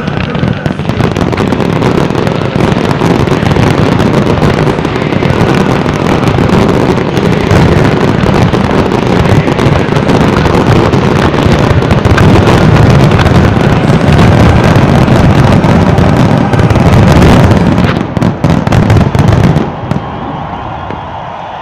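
Dense fireworks finale barrage: a continuous rapid volley of shell bursts and crackling reports over deep booms, loud throughout, stopping abruptly about twenty seconds in.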